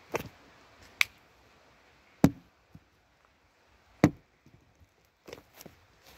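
Handling noise: about six sharp, irregularly spaced knocks and clicks as a small plastic glue bottle and a lump of slime are handled close to the microphone.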